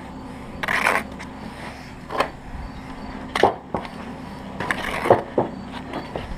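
Steel trowel scraping up and spreading mortar and bricks being set into the mortar bed: a quick run of short scrapes and knocks, roughly one every second, over a steady low hum.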